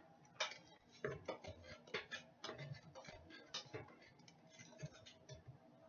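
Spoon stirring sugar and molasses in a blender jar, clinking and tapping against the jar in quick irregular strokes.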